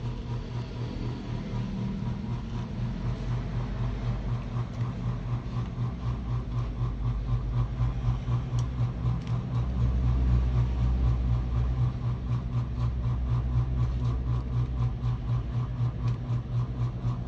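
A steady low mechanical hum that pulses evenly several times a second, getting a little louder about halfway through.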